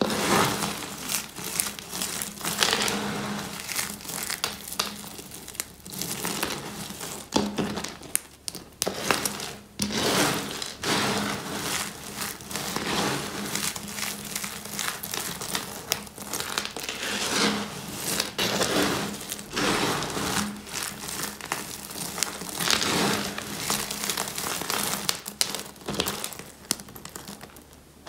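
Hands squeezing and crushing a pile of dry, brittle soap flakes. It is a dense crunchy crackle that swells with each grab and eases between them.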